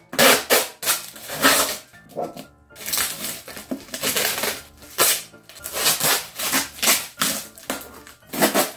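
Scissors snipping and sawing through packing tape and a cardboard box, with cardboard tearing and rustling in irregular strokes. The box is tightly taped and slow to open.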